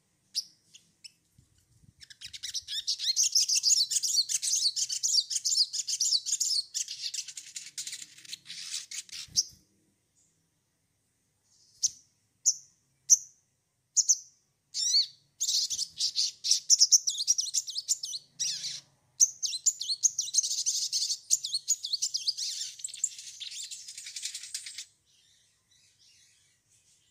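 A caged sogon songbird singing: long runs of rapid, high-pitched chattering twitters, broken in the middle by a few separate short notes.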